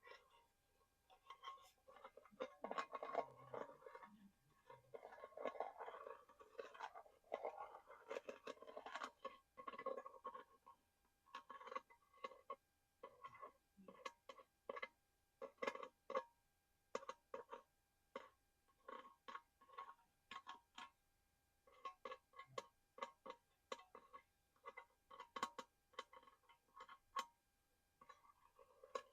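Tapping and scratching on small collectible objects: irregular sharp taps throughout, with denser scratching and rustling in the first third.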